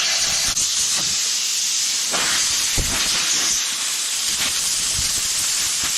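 Compressed-air blowgun hissing steadily as it blows dust out of a chainsaw's air filter housing, with a few faint knocks.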